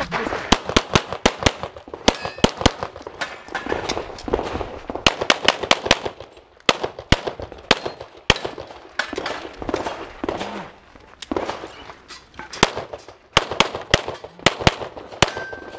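Pistol shots fired in quick pairs and fast strings, several a second, with short pauses of a second or so between strings.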